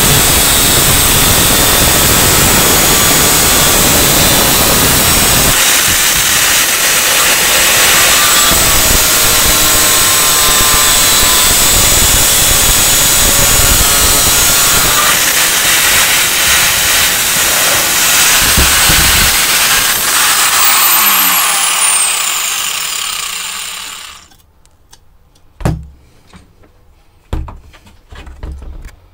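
Angle grinder with a cut-off disc cutting through a braided steel exhaust flex pipe, grinding steadily. About three quarters of the way through it is switched off and spins down with a falling whine, and then come two short knocks.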